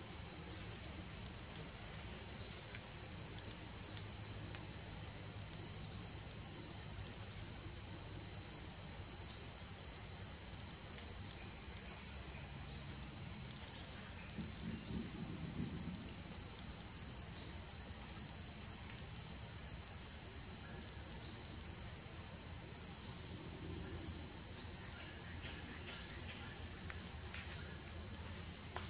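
Chorus of insects giving a continuous, high-pitched steady buzz that does not change.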